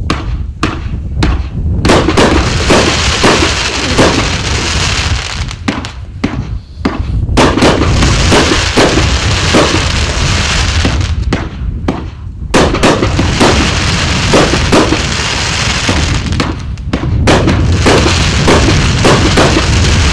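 A 500 g, 25-shot consumer fireworks cake with 30 mm tubes firing shot after shot: repeated sharp thumps of shells launching and bursting, over a dense crackling hiss, with short lulls between volleys.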